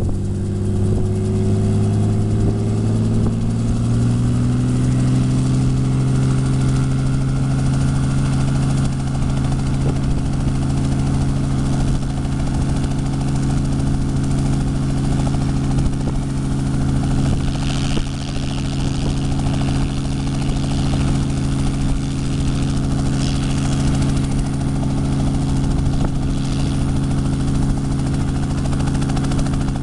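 Small piston-engine helicopter, a Robinson, running on the ground. The engine and main rotor speed up over the first few seconds, then settle into a steady hum at constant pitch.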